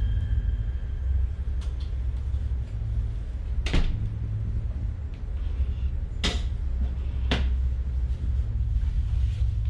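Horror-film sound design: a steady low droning rumble with three sharp knocks or clacks spread over the middle, the last two about a second apart, plus a few fainter clicks.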